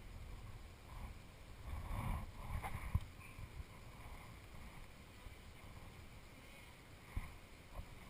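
Wooden beehive frames and hive box knocking and scraping as they are handled, a few knocks with the loudest about three seconds in and another near the end, over a low wind rumble on the microphone.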